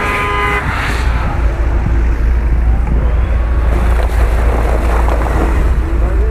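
Off-road 4x4 engines working hard under load as a pickup and then an SUV climb a muddy, snowy slope, with wheels spinning in the mud, over a heavy steady low rumble. A brief steady tone sounds in the first half-second.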